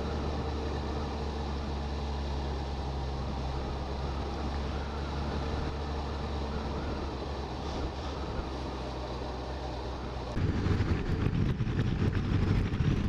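Motorcycle engine running steadily at road speed, a constant hum under road and wind noise. About ten seconds in, the sound gets suddenly louder and rougher as wind rumble on the microphone rises.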